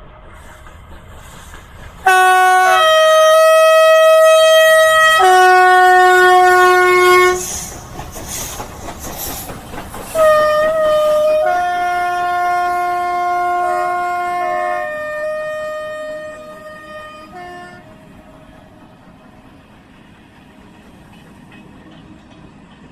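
Whistle of steam locomotive 231 K8, an SNCF Pacific, sounded in two long blasts a few seconds apart, its pitch stepping between notes within each blast. The second blast opens with a few short toots. Between the blasts is a noisy rush.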